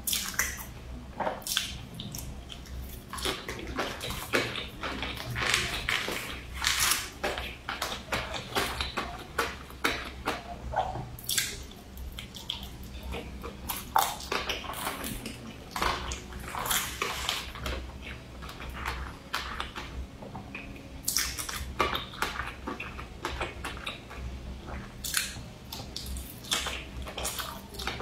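Close-miked wet chewing and mouth smacks while eating sweet sticky rice from a spoon, a run of short, irregular clicks and squelches.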